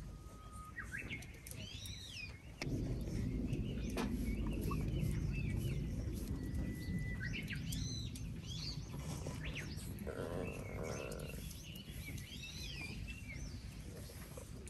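A songbird singing short whistled phrases, repeated about three times, over a low steady rumble that starts suddenly about three seconds in.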